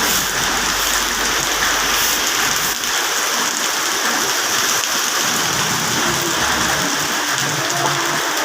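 Steady rain falling hard, an even hiss of drops on surfaces.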